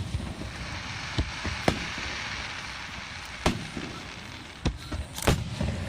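Aerial fireworks shells bursting in a string of sharp booms, about five in a few seconds, with a hissing crackle between the first few bursts.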